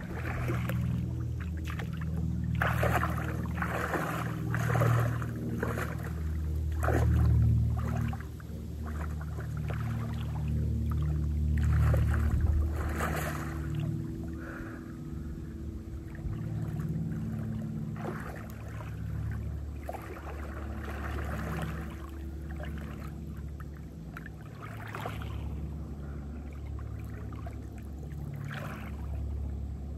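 Lake water splashing and sloshing in irregular bursts as a person wades in and swims, over background music of sustained low chords.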